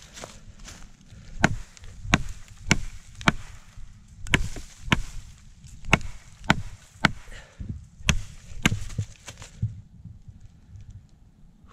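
Kukri machete blade chopping into a hardwood branch, a steady run of about fifteen sharp strikes at roughly two a second. The strikes stop about two seconds before the end.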